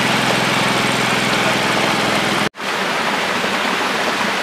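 Water splashing and churning in a catfish pond as a netful of catfish fingerlings is emptied in, over the steady hum of a small engine. About two and a half seconds in the engine hum stops abruptly, leaving continuous splashing water.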